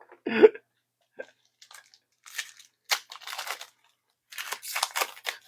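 Foil trading-card pack wrapper crinkling and tearing as a pack is opened, in two rough bursts of crackly rustling.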